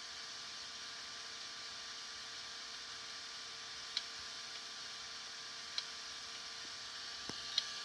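Hitachi HDS5C1010CLA382 hard drive clicking: four short sharp clicks at uneven intervals in the second half, over a steady hum and hiss. The uploader takes the clicking for a possible head crash.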